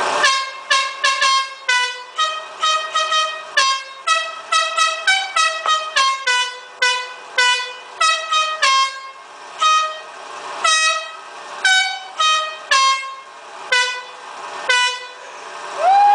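Air horns blown in dozens of short, pitched toots at several different notes, playing a tune. The toots come quickly at first and then more spaced out.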